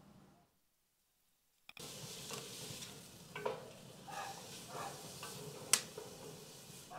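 Food sizzling in a steel pot on a wood-fired stove while it is stirred with a spoon: a steady sizzle with repeated scraping and clinking strokes against the pot, and one sharp knock about three-quarters through. It begins after a second or so of silence.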